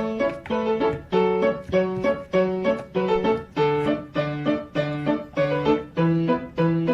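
Background music: a piano melody in steady, evenly spaced notes, about two a second.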